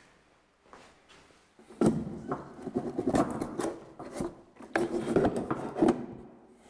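Sheet-metal cover of an old polishing machine's housing scraping, rubbing and knocking against the housing as it is worked loose and lifted off. The scraping starts about two seconds in and comes in a run of grating noises with sharp knocks.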